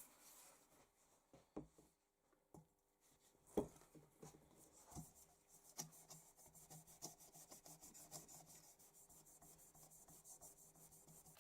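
Faint rubbing of metal polish onto a brass chandelier part by hand: a few light knocks, then quick, even back-and-forth strokes from about four seconds in.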